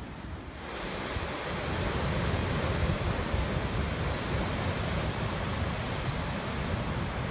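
Ocean surf breaking against black lava rocks, a continuous rush of white water that grows louder about a second in, with wind rumbling on the microphone.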